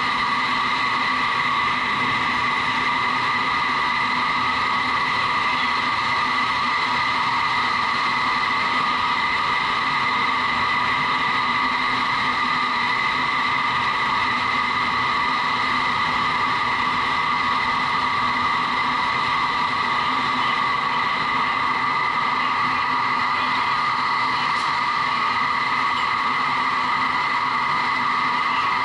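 Vertical wind tunnel running at flying speed: a loud, steady rush of air with several steady whining tones from its fans.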